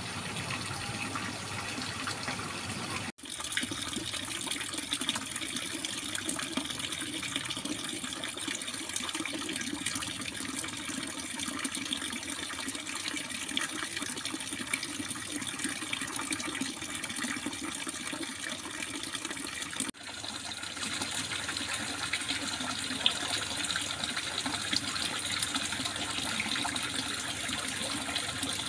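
Running water trickling and splashing steadily, with two momentary dropouts, about three seconds in and about twenty seconds in.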